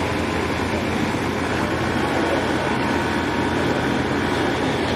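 A heavy engine running steadily at idle, with no revving.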